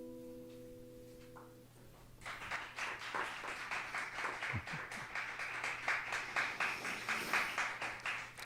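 The last chord of an acoustic guitar rings and fades, then is damped about a second and a half in. About two seconds in, applause starts and keeps up steadily.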